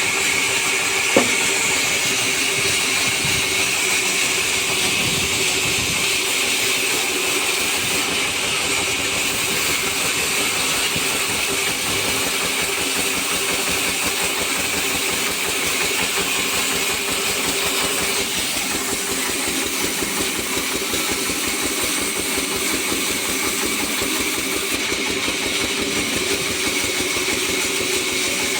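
Sawmill saw running steadily, cutting kadam wood, with a sharp click about a second in.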